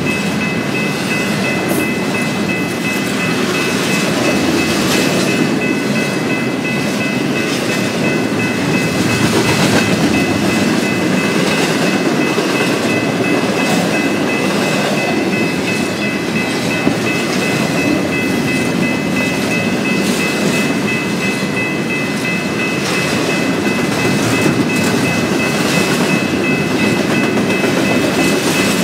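Train cars rolling past close by: a steady rumble and rattle of wheels on rail with faint regular clicks at the rail joints. A thin, high, steady whine runs under it.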